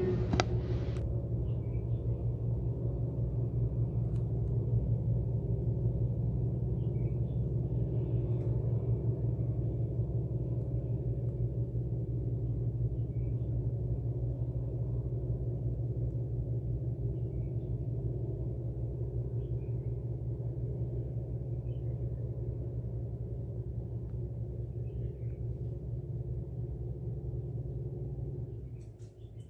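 A steady low hum that drops away near the end.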